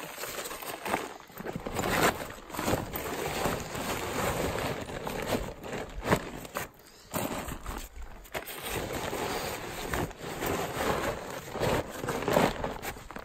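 Stiff fabric and plastic rustling and crinkling in irregular bursts, with sharp scrapes, as food-filled Hyperlite stuff pods and Mylar food bags are pushed down into an Ursack bear-resistant sack.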